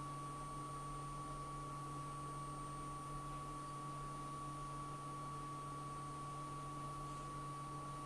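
Steady room tone: a low electrical hum with a thin, constant high tone above it, and no other sounds.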